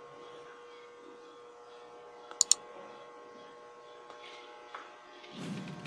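Steady machine hum made of several even tones. Two sharp clicks come in quick succession about two and a half seconds in, and a short low rumble comes near the end.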